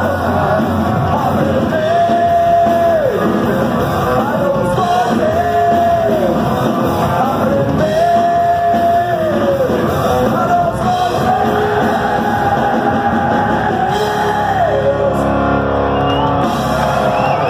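Rock band playing live in a large hall: drums, guitars and a singer holding long notes that drop in pitch at their ends.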